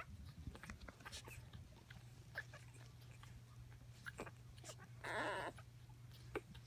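One-week-old puppies squeaking and whimpering in short high chirps, with one longer, louder cry about five seconds in, over a low steady hum.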